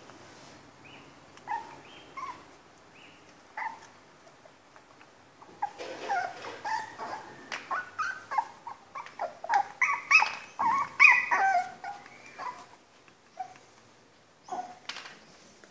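Small black curly-coated dog making short high-pitched play yips and whines, a few scattered at first, then a rapid run of them from about six to twelve seconds in, then a couple more near the end.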